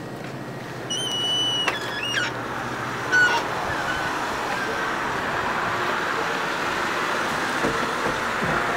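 A short electronic chime of a few stepped high tones, a sharp knock, then steady traffic noise with a car's engine running.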